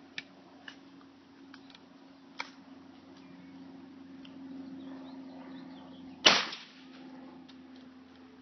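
A single shotgun blast about six seconds in, firing buckshot. A few faint clicks come before it.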